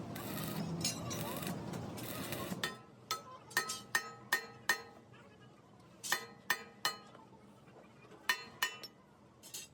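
Light metal strikes on steel, each with a short ringing tone, in quick clusters of several taps, after a stretch of steady noise in the first couple of seconds.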